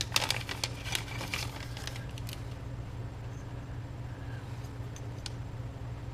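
Quick clicks and rustles of RAM sticks and an envelope being handled and sorted, lasting about two seconds, then a steady low hum with a few faint clicks.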